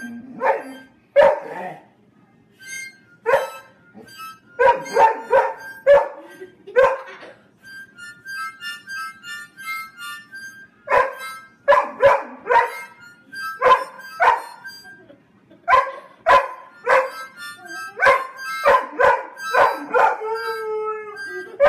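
A beginner's harmonica played in short, repeated chords, with a young Bernese Mountain Dog puppy howling along; near the end a long howl falls in pitch.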